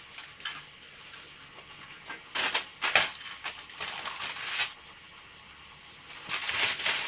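Aluminium foil crinkling in several short, irregular bursts as parathas are wrapped in it.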